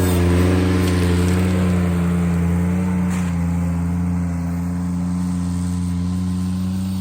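Ventrac compact tractor's engine running steadily at working revs, its pitch wavering slightly and dipping a little about three seconds in.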